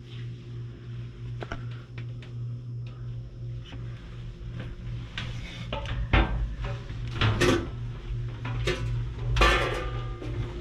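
A steady low hum inside the submarine's cramped steel compartments, with scattered knocks, clanks and footsteps as someone walks through; louder clatter comes about six seconds in and again near the end.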